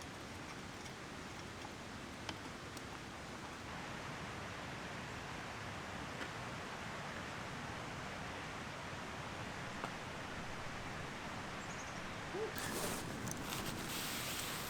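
Steady, even rush of river rapids. Some rustling and handling noise comes in about two seconds before the end.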